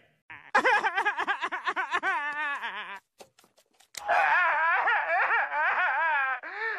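A cartoon voice laughing in a pulsing run for a couple of seconds, then a few faint clicks. About four seconds in, a loud, wavering crying wail through a megaphone begins.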